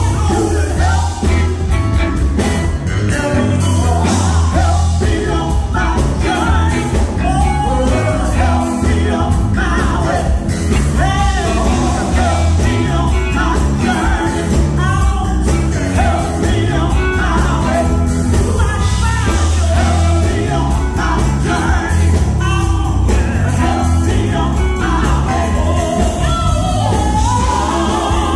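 Live gospel group singing with a band, over a heavy, steady bass line.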